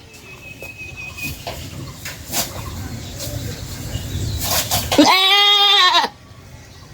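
A goat bleats once, one long call of about a second, about five seconds in. Before it there is quieter rustling with a few knocks.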